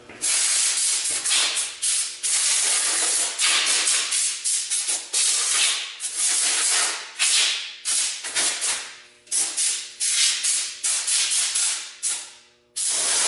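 Compressed-air blow gun fired in a dozen or so bursts of hissing air, some short and some over a second long, against the underside of a lawn mower deck to blow off loose grass.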